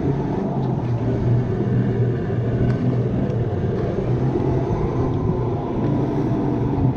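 RiMO electric go-kart driving at speed: a steady low rumble with a constant hum underneath and no engine revving.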